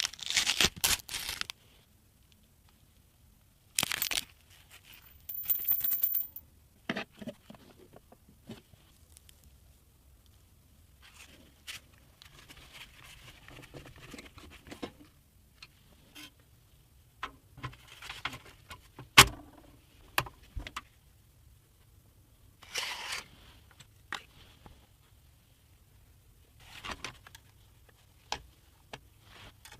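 Packaging being handled while PC parts are unboxed: short bursts of tearing and crinkling, with scattered clicks and knocks. The sharpest click comes a little past the middle.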